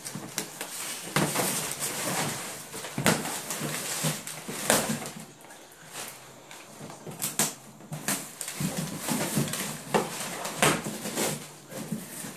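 Large cardboard box scraping and knocking about on a tile floor as an English bulldog shoves its head into it, with scuffling throughout and several sharp knocks.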